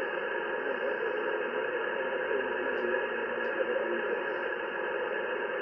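Static hiss from a Yaesu FT-710 transceiver receiving single-sideband on the 15-metre band: steady, even band noise cut off above about 3 kHz, with only faint traces of a voice beneath it.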